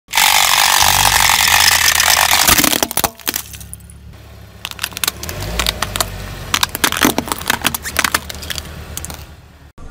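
Car tyre rolling over and crushing hard plastic toys, a clownfish toy and then a pair of plastic sunglasses. There is a loud crunching of splintering plastic for the first three seconds, then a run of sharp cracks and snaps in the second half, under a low rumble from the car.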